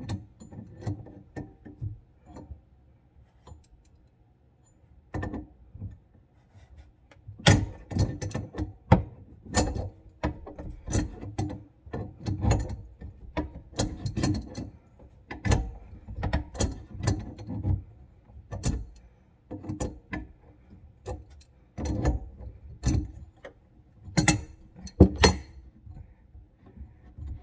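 Irregular clicks and knocks of metal fittings and a hand tool as a kitchen faucet's water supply hose is unscrewed under the sink, sparse at first and busier from about seven seconds in.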